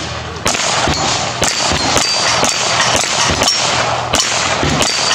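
Handgun fired in a rapid string at a steel plate rack, about two shots a second, each hit knocking a plate down with a metallic clang and brief ring.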